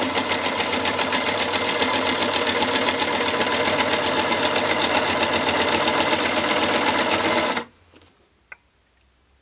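An old Jones electric sewing machine runs steadily, stitching a seam through folded canvas with rapid, even needle strokes. It stops abruptly about seven and a half seconds in, and a single faint click follows about a second later.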